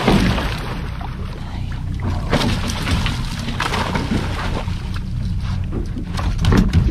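Boat engine running steadily, with water splashing against the hull and wind gusting over the microphone.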